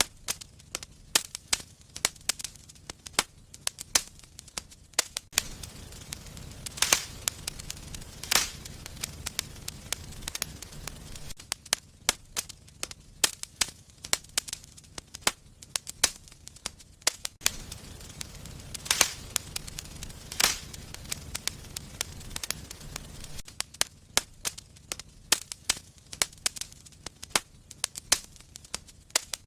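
Wood fire burning in a fireplace, crackling with frequent sharp pops and a few louder snaps, over a low steady rumble.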